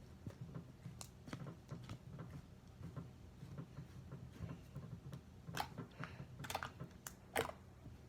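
Slime being squished and poked by hand, making faint irregular sticky clicks and pops, with a few sharper snaps in the second half.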